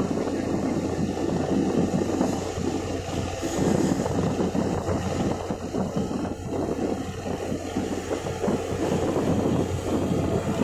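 Steady low drone of a ship's engine under way, with wind buffeting the microphone.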